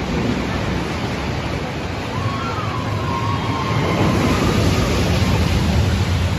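Steel roller coaster train (TOGO's Fujiyama) running along its track: a steady rushing rumble of wheels and wind, with a faint wavering high tone about two seconds in.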